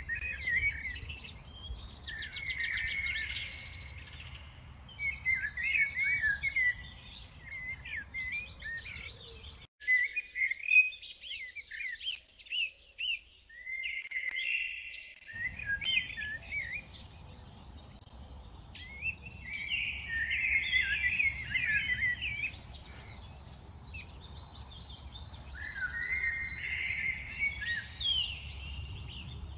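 A mixed group of songbirds singing and chirping together, with overlapping whistles, short calls and fast trills. Under them is a steady low background rumble that drops out for several seconds near the middle.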